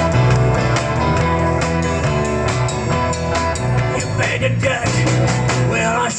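Rock band music: electric guitar over bass and drums, with a steady beat throughout.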